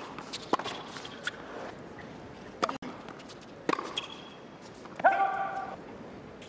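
Tennis balls struck by rackets on a hard court, making sharp pops every second or so, with a brief squeak of shoes near the middle. The loudest thing is a short loud cry about five seconds in.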